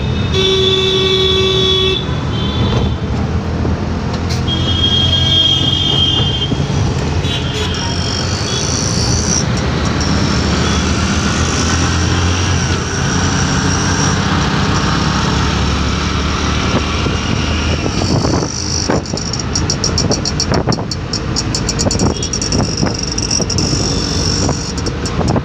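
Auto-rickshaw engines running in slow city traffic, heard from a moving auto-rickshaw, with vehicle horns honking twice in the first six seconds and a few shorter toots after. A fast rattle sets in near the end.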